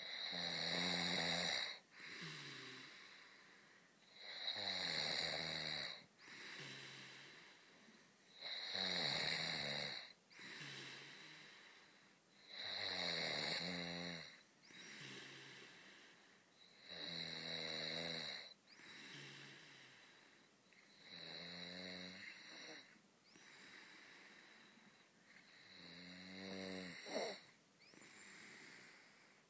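A man with a blocked nose snoring in his sleep: a loud snore on each breath about every four seconds, with a quieter snore in between.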